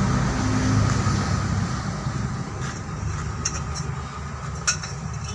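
A vehicle engine running with a steady low hum that fades after about two seconds. Several sharp clicks or knocks come in the second half, the loudest near the end.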